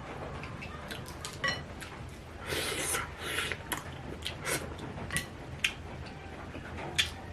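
Someone eating a bowl of Jin Ramen noodles: scattered sharp clicks of utensils against the bowl, with a longer hissing slurp about two and a half seconds in.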